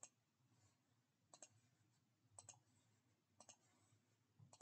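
Faint computer mouse clicks, each a quick press-and-release pair, about once a second, over near silence.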